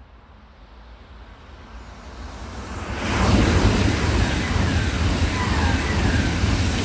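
Two coupled DB Class 411 ICE T electric trainsets passing close by at speed. Their rushing noise swells over the first three seconds as they approach, then holds loud and steady as the cars sweep past.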